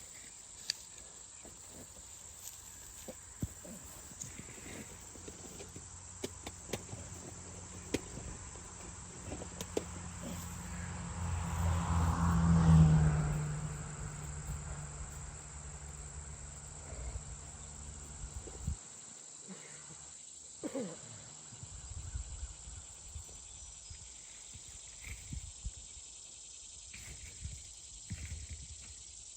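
Steady high chirring of crickets outdoors, with scattered small knocks and clicks. A low steady hum grows to its loudest about twelve seconds in and cuts off suddenly about two-thirds of the way through.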